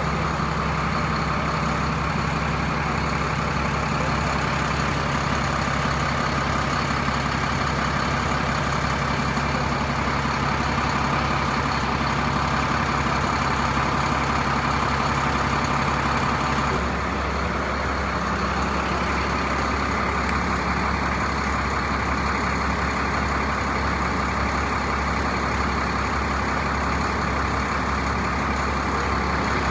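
Large coach bus idling steadily, a constant low engine hum whose tone shifts slightly a little over halfway through.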